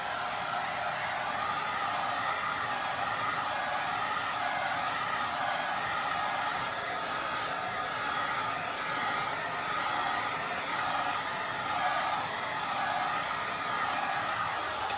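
Handheld hair dryer running steadily, blowing air with a continuous whoosh that wavers slowly in tone.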